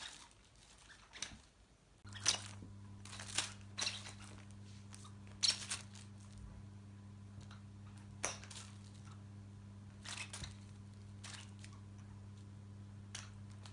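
Scattered short rustles and light knocks, with a steady low electrical hum that starts abruptly about two seconds in.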